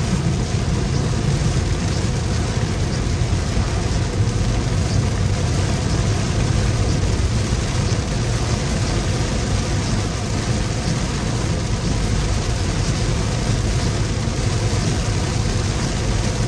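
Steady car-cabin noise in a heavy downpour: a constant low rumble from the car with the hiss of rain over it.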